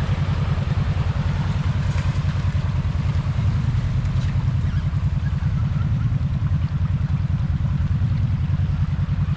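Off-road vehicle engine running steadily at low revs, with no revving up or down.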